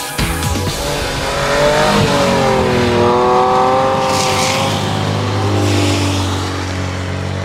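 Race car engine revving hard, its pitch falling and then climbing again, with a rush of tyre noise on wet tarmac about four seconds in.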